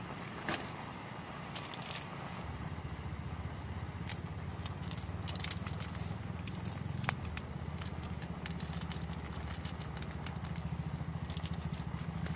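Portable gas camping stove burning steadily under a pot of instant noodles, a low rumbling hiss. Crinkling and tearing of small plastic seasoning sachets come through in the middle.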